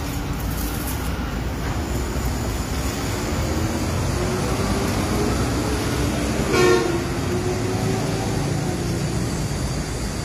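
Plastic bag factory machinery running with a steady mechanical din and a low hum. About six and a half seconds in, a short, loud, high-pitched toot sounds over it.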